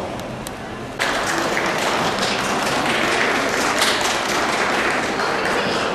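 A crowd applauding, starting abruptly about a second in and continuing steadily.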